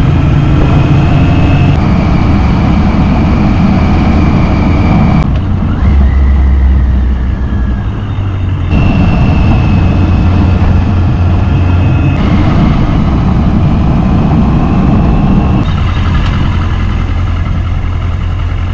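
A 1983 Yamaha XJ900F motorcycle's air-cooled inline-four engine running on the move, mixed with wind and road noise. The sound changes abruptly several times, in steps a few seconds apart.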